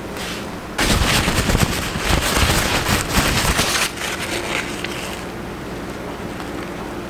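Home-made black powder poured through a paper funnel into a brass cartridge case: a dense gritty rattle of about three seconds that starts suddenly and trails off more faintly.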